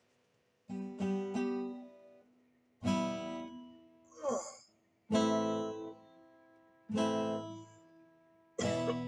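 Acoustic guitar chords struck one at a time and left to ring and fade, a couple of seconds apart, with three quick strums about a second in. A brief rising voice sound comes about four seconds in.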